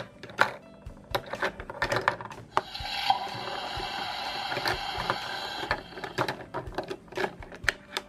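Plastic toy kitchen utensils clicking and tapping against a plastic toy sink. A steady hissing sound runs for about three seconds in the middle.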